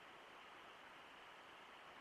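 Faint, steady rush of water from the falls and river, an even hiss with no distinct events.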